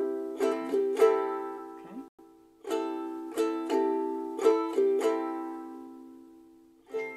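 Ukulele strummed on one held chord in a down, down-up, down-up, down pattern, played twice over, the last strum left ringing and dying away, then one more strum near the end.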